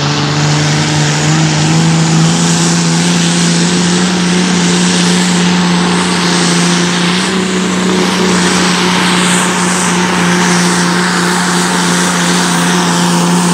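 Roadrunner, a Pro Sport class pulling tractor (engines up to 7000 cc), running flat out under load during a pull. The engine note stays high and steady, rising slightly a couple of times, over heavy exhaust noise.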